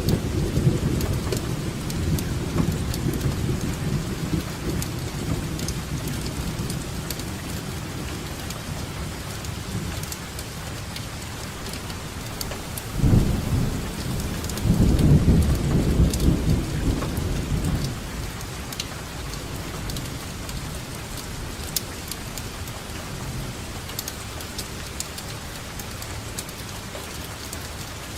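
Steady rain falling, with individual drops ticking, and rolling thunder. A low rumble fades over the first several seconds. About halfway through a sudden clap is followed by a few seconds of rumbling that dies away.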